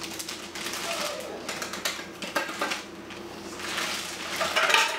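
Plastic zip-top bags being handled and pressed shut: crinkling plastic and quick runs of clicking from the zipper seals, with a few sharper clicks.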